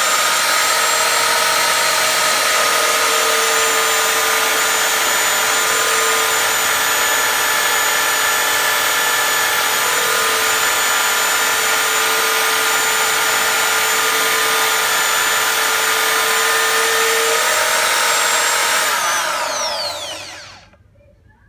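Corded electric drill, mounted in a wooden stand, running steadily at full speed with a high whine as it spins a non-woven abrasive polishing wheel while a rusty screwdriver shaft is held against it to scrub off rust. Near the end the drill is switched off and winds down, its whine falling in pitch until it stops.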